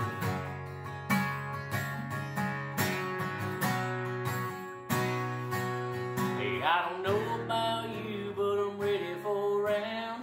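Acoustic guitar strummed in a steady country rhythm, changing chord about halfway through. For the last few seconds a second pitched line that slides and bends joins the chords.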